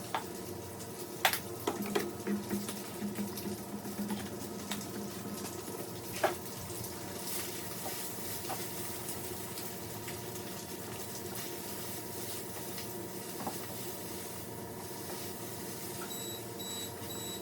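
Kitchen with a steady hum of pans cooking on the stove, with a few knocks and rattles in the first several seconds. Near the end a timer beeps in short, evenly spaced high pips, signalling that the chicken is done.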